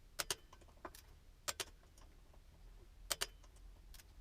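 Click-type torque wrench clicking off as the brake disc bolts reach their 39 Nm setting: three sharp double clicks, about a second and a half apart.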